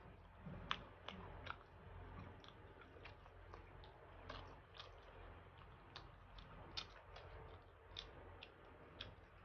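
Quiet chewing of chicken tandoori, with many short, irregular wet mouth clicks throughout.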